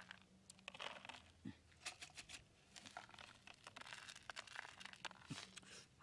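Faint, irregular clicks and crackles of dry corn kernels dropped by hand onto a cardboard sheet.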